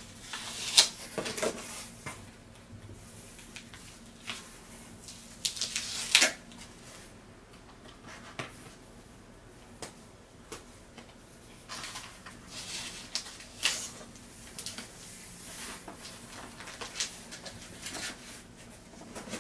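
Cardboard shipping box and its packing being handled: scattered rustles, scrapes and sharp taps as taped-down packing is pulled loose and the contents lifted out, the sharpest about a second in, around six seconds in and near fourteen seconds.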